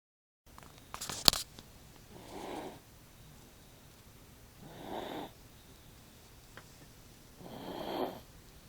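A person snoring: three drawn-out snores about two and a half seconds apart, with a sharp click about a second in.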